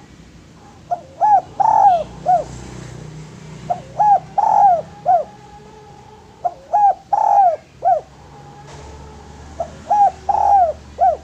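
Spotted dove (derkuku) cooing: four repeated phrases about three seconds apart. Each phrase has four mellow notes, and the third is the longest and loudest.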